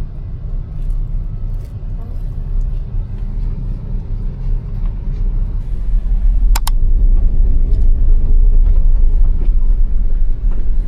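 Low, steady rumble of a moving road vehicle, growing louder about halfway through, with two sharp clicks close together just after.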